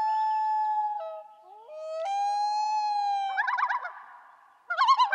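Common loon calling: two long wails that each glide up and then hold steady, followed by a rapid warbling tremolo that starts a little after the middle.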